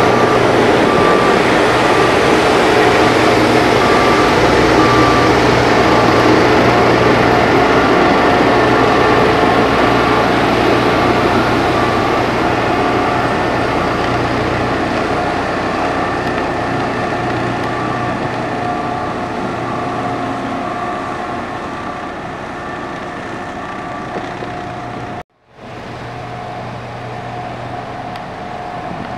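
Diesel engine of a heavy road-construction machine running steadily, with a reversing alarm beeping about once a second; the sound slowly fades as the machine moves away, the beeping stops near the end, and after a brief cut a quieter engine runs on.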